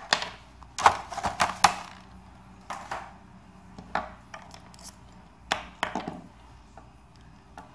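Small cable plugs and a microphone adapter handled and set down on a wooden tabletop: irregular clicks and knocks, a quick cluster about a second in, then scattered single taps.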